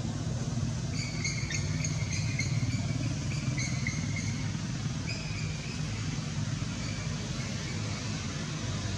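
Steady low rumble of distant motor traffic, with a run of short high chirps from about one to five seconds in.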